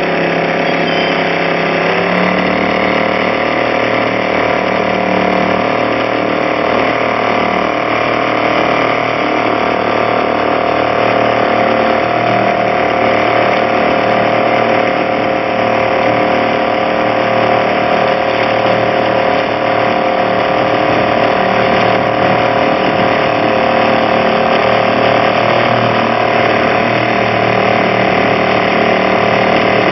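Boat engine running steadily, heard on board; its pitch rises about two seconds in, then holds.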